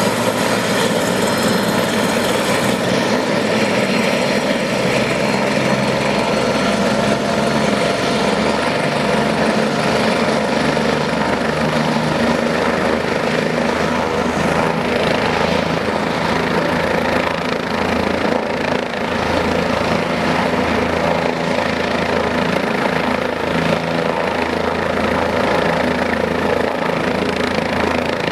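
Medical helicopter's turbine engine and rotor running steadily while it sits on the ground, a steady whine over a low rotor rumble.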